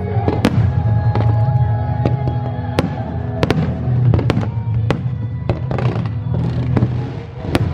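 Aerial firework shells bursting in quick succession, about ten sharp bangs over a continuous low rumble.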